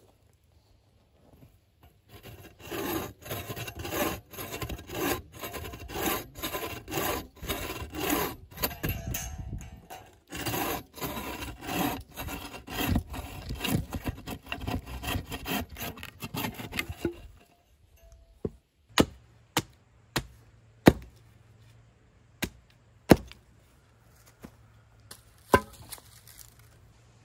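Bow saw cutting through a log, steady back-and-forth strokes at about two a second. After about seventeen seconds the sawing stops and a hatchet chops wood in separate sharp knocks, about one a second, pointing the ends of wooden stakes.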